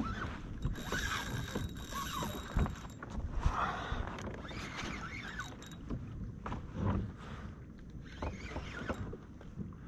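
A fishing kayak on open water: water sloshing against the hull and wind on the microphone, with a few sharp knocks from gear being handled as the angler works the rod.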